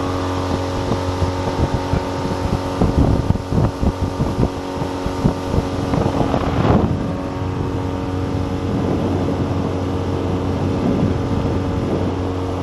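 A 15 hp Lehr propane four-stroke outboard running steadily at planing speed, pushing an inflatable dinghy at about 20 mph. Irregular thumps and buffeting are heard over the engine during the first half or so, then it runs evenly.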